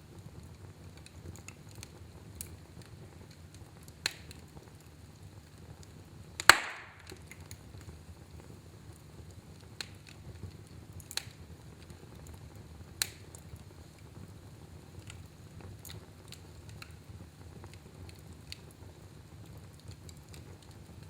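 Wood fire burning in a fireplace, crackling with scattered sharp pops over a low steady rumble. The loudest pop comes about six seconds in.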